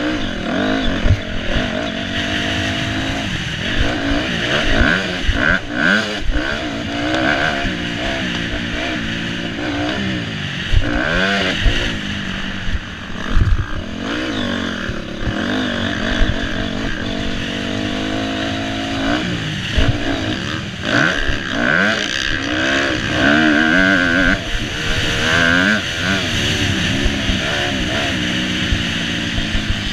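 Motocross dirt bike engine heard from the rider's helmet camera, revving hard, its pitch climbing and dropping again and again as the bike is ridden around the track. A few sharp knocks break in along the way.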